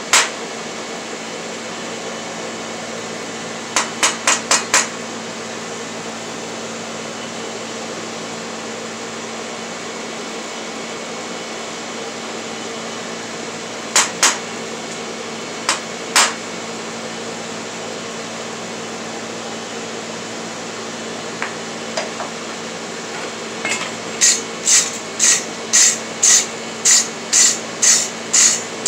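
Sparse metal strikes on a hot steel bar at a blacksmith's anvil: a quick run of five light taps, then a few single and paired knocks, over a steady background hum. For the last few seconds a hand wire brush scrubs the hot bar at about two strokes a second.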